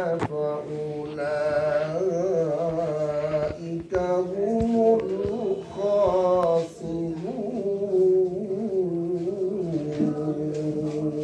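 A single man's voice chanting melodically, in long held notes that waver and are ornamented, pausing briefly between phrases.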